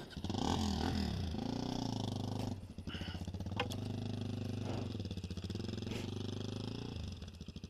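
Dirt bike engine revving up and down in the first second, then running steadily under light throttle as it moves over rough ground.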